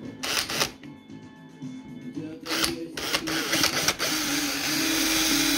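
Power drill boring into a plastic battery box: a few short bursts, then running steadily from about four seconds in, over background music.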